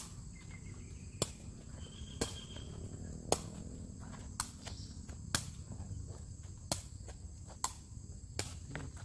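A woven takraw ball being kicked back and forth: sharp, crisp cracks of foot on ball about once a second.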